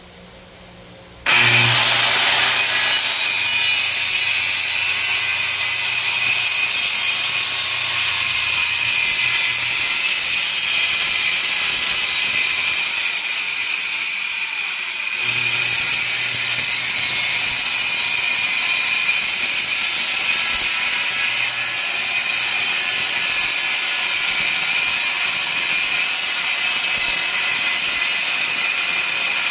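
Power saw cutting plywood lengthwise: it starts up about a second in and runs steadily with a high whine, eases briefly about halfway, then cuts on.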